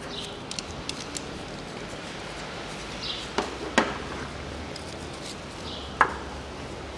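Hand tools clinking on metal in a car engine bay as bolts are undone with a socket wrench: a few light ticks in the first second, then sharp metallic clinks a bit after three seconds, just under four seconds and at six seconds, the one at six the loudest.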